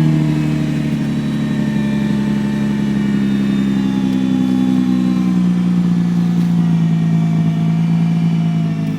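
Nissan GT-R's twin-turbo V6 idling steadily after being started on fresh oil, its pitch easing down slightly.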